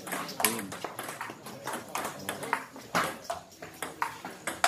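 Table tennis rally: the ball ticks sharply off the paddles and the table in a quick, uneven series of clicks, the loudest about half a second in and near the end.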